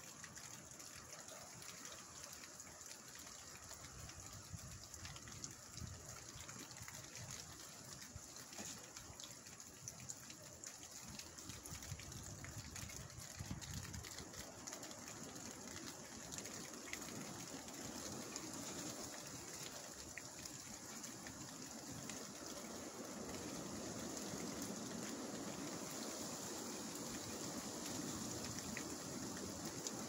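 Strong wind rushing through leafy trees in a steady wash of noise, growing louder about two-thirds of the way through as a gust builds.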